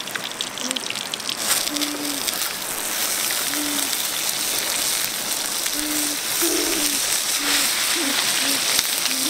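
Fish sizzling on a clay pot shard over an open wood fire: a steady hiss with fine crackles. A bird calls with short, low hooting notes, repeated irregularly.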